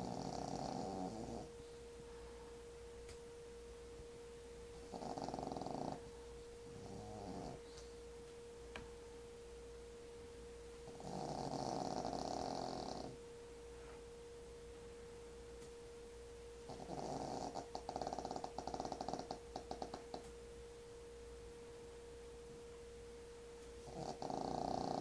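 A sleeping pet snoring, one snore every five or six seconds, some of them fluttering and rattly. A faint steady hum runs underneath.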